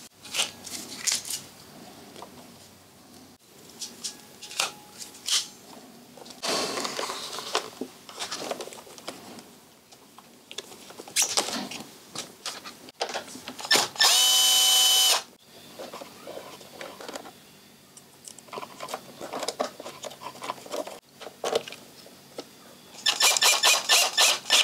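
Cordless electric screwdriver working a motorcycle battery terminal bolt. Its motor runs steadily for about a second around the middle, then again near the end in a quick series of short pulses as the positive terminal is tightened. Between the runs there are small clicks and rustles of wiring and parts being handled.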